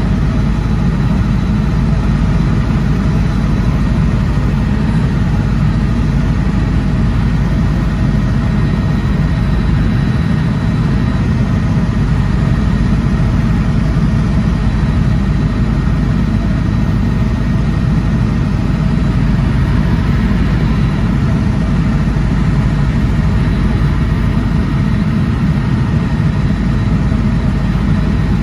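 Helicopter in flight: a steady, loud engine and rotor rumble with a faint constant high whine.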